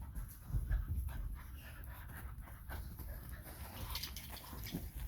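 Bullmastiffs panting as they play, with light knocks and scuffles throughout.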